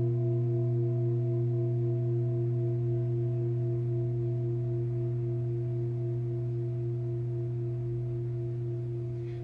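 Antique Tibetan singing bowl ringing after a mallet strike: one long, deep tone with several higher overtones, fading slowly with a gentle waver.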